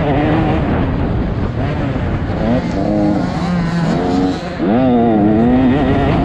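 Motocross dirt bike engine revving hard, its pitch rising and falling repeatedly with throttle and gear changes. About four and a half seconds in it briefly drops off, then climbs sharply again.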